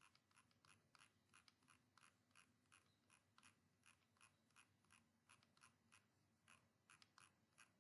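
Near silence with faint, evenly spaced clicks, about three a second, from a computer mouse scroll wheel being turned.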